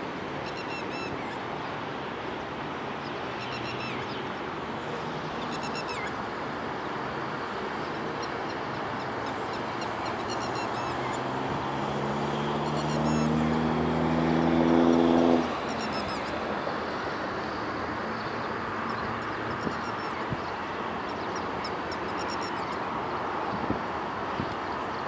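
Red-wattled lapwing alarm calls: short, shrill notes every few seconds. The recordist takes them for the bird attacking because its nest is nearby. In the middle an engine hum grows louder for about four seconds and cuts off suddenly, the loudest sound here.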